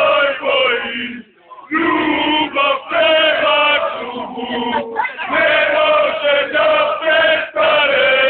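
A packed crowd of male football supporters chanting loudly in unison, in sung phrases with a brief break about a second in.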